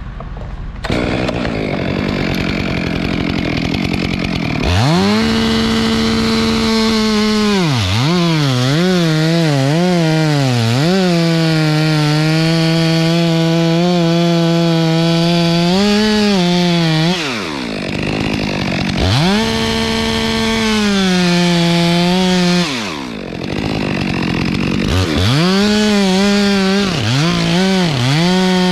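Stihl top-handle two-stroke chainsaw cutting a pine trunk. About five seconds in it revs up to full throttle, and the pitch sags and wavers as the chain bites, then holds lower through a long cut. It drops back twice and revs into the cut again each time, with quick throttle blips near the end.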